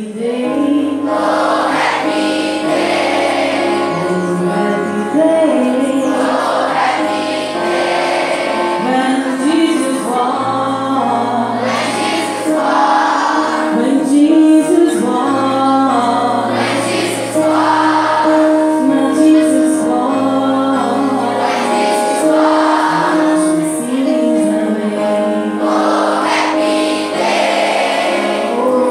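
A large group of voices singing together over instrumental accompaniment, with held notes and a steady bass line underneath.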